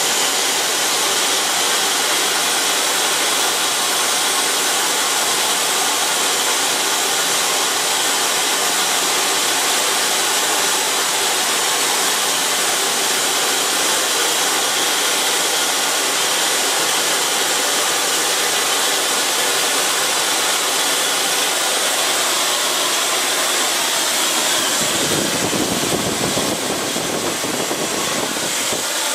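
Homemade turbojet built from a Volvo TD04HL-13G turbocharger running steadily: a loud jet hiss with a steady high whine over it. About 25 seconds in a low rumble joins in for a few seconds.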